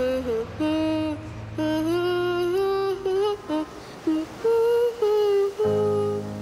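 A woman humming a slow tune unaccompanied. About five and a half seconds in, a low sustained instrumental chord comes in beneath her voice.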